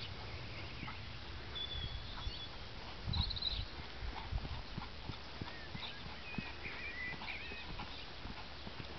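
A ridden grey cob's hooves falling on a sand arena surface as it trots and canters: dull, irregular thuds, heaviest about three seconds in.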